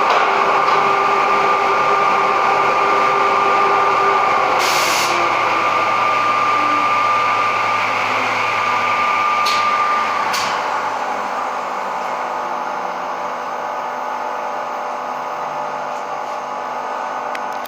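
Automatic edge banding machine running: a steady machine whine and hum with a short hiss about five seconds in and two sharp clicks around ten seconds. The high tone then stops and the machine sound gets quieter.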